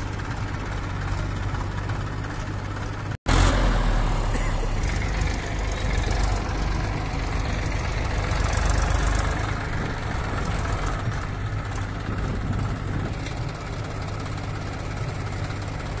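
Massey Ferguson tractor's diesel engine running under load as it pulls a heavily loaded trailer. The sound drops out for an instant about three seconds in, then comes back louder and swells a little near the middle.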